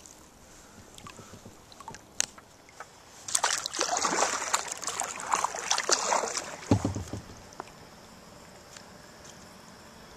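Lake water splashing and sloshing around a kayak in irregular bursts for a few seconds, then a short dull low thump.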